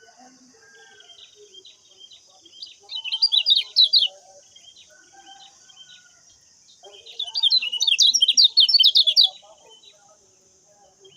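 Lemon-bellied white-eye (kecial kuning) singing: two loud bursts of rapid, high chirping, the second one longer, over softer scattered twittering and a faint steady high hiss.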